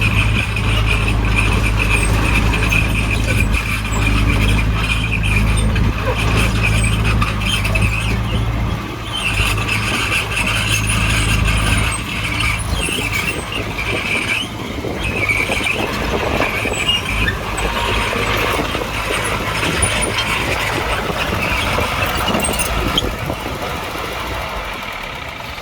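Bulldozer working: its diesel engine runs with a steady low drone that grows rougher and less even after about nine seconds, under a high-pitched squeal that comes and goes.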